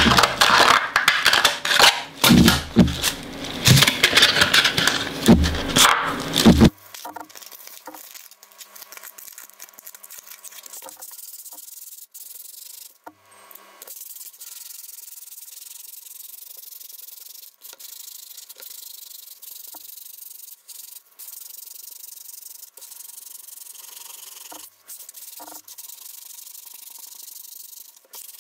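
Hand sanding with 80-grit sandpaper, rubbing over an end-grain hardwood cutting board to take out knife marks. Loud rustling and rubbing for the first seven seconds or so, then a much fainter steady hiss.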